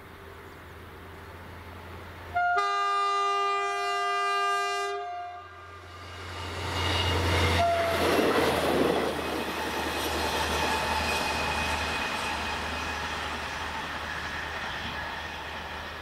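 A train horn sounds one long blast of about two and a half seconds. The train then passes over the level crossing with a loud rush and rumble of wheels on rail, loudest a few seconds after the horn and slowly fading.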